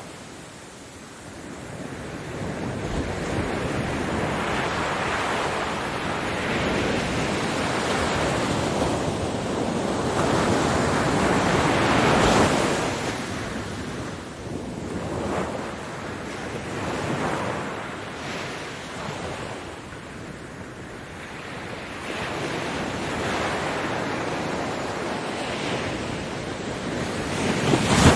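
Ocean surf breaking on a beach: a continuous wash of waves that swells and ebbs. The biggest wave breaks about twelve seconds in and another peaks near the end.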